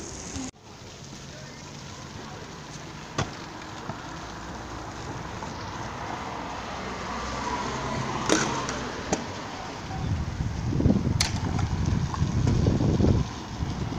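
Stunt scooter riding on stone paving: the wheels roll over the slabs, with a few sharp clacks of the scooter hitting the ground. Heavier rumbling and gusts, like wind on the microphone, come in near the end.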